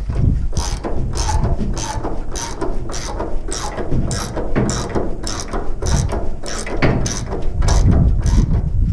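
Ratchet wrench clicking in a steady rhythm, about two to three clicks a second, as it turns the tensioner bolts of a manure spreader's slatted floor chain conveyor to take up the chain's slack. The clicking stops shortly before the end.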